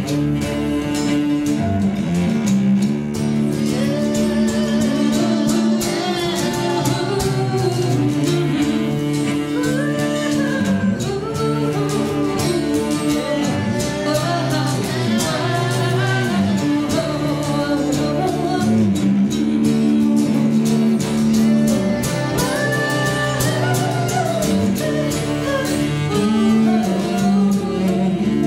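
Acoustic guitar and cello playing an instrumental passage of a slow folk song, with a melody winding up and down over long held low notes.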